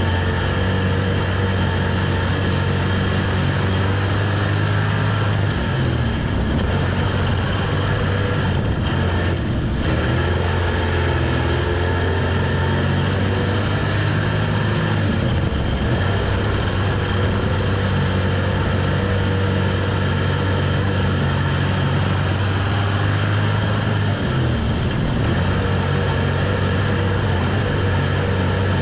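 In-car sound of a dirt-track street stock race car's V8 engine running hard at racing speed: a loud, steady drone whose note dips briefly twice.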